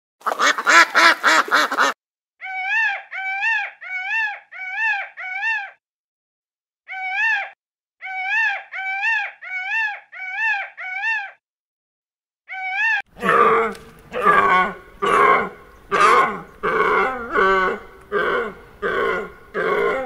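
Animal calls in three runs: a rapid burst of calls, then a long series of short calls, each rising and falling in pitch and evenly repeated, then harsh, rhythmic calls about three every two seconds.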